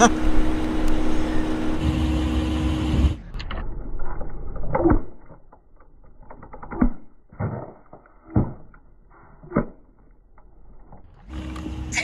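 A car tyre rolling over a net bag of detergent pods and crushing them. A steady hum for about the first three seconds, then a run of short squelching pops and squeaks as the pods burst.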